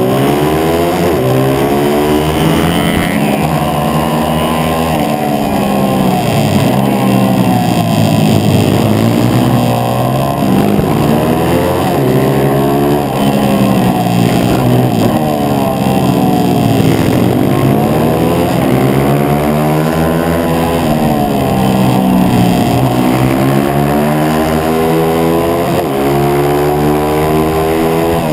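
A 140cc pit bike's single-cylinder engine at race speed, heard on board: it revs up through the gears and drops back off for the corners, rising and falling again every few seconds.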